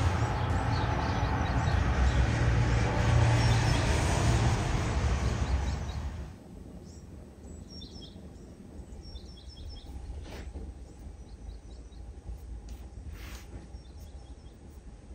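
Steady rushing noise of rain, which cuts off about six seconds in. Quieter room background follows, with birds chirping a few times and a couple of soft knocks.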